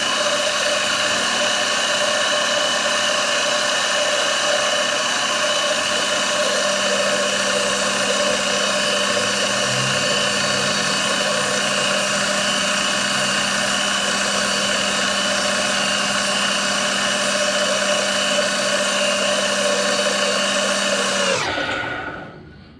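Electric motor of a workshop machine running steadily at constant speed with a steady whine, then switched off near the end and winding down to a stop.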